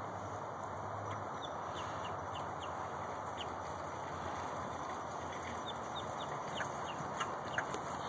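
Grackles giving short, sharp downward chirps, scattered through and coming more often in the second half, over a steady background hiss.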